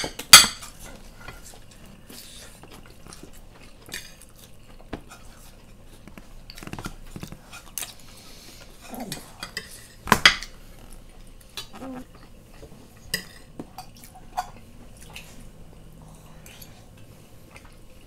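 Metal spoons clinking and scraping on ceramic plates while people eat, with scattered sharp clinks, the loudest just after the start and about ten seconds in.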